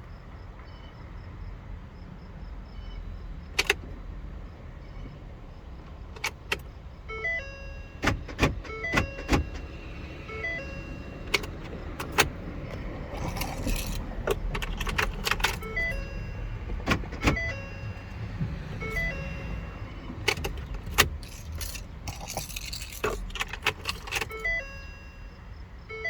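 Keys jangling and clicking as a key is turned in the 2015 Ford F250's ignition during immobilizer key programming, with the truck's short electronic chime tones sounding over and over between the clicks.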